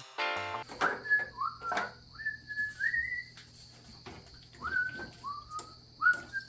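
A person whistling a short tune in two phrases, each note sliding up into a held pitch, with light clicks of handling underneath.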